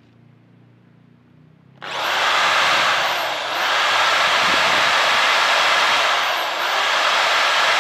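Electric hand drill starting up about two seconds in and running hard while its thin bit drills into the steel hub nut at the end of a rear axle. Its pitch dips briefly twice.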